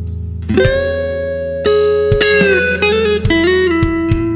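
Telecaster-style electric guitar playing a slow lead line: long held notes, one bending slightly, and a quick run of notes about three seconds in, ending on a long sustained note. Under it is a steady low backing with an occasional kick drum.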